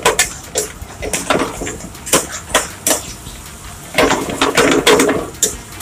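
Metal ladle scraping and knocking against a frying pan as thick masala is stirred, in irregular clanks with a denser run of scraping near the end.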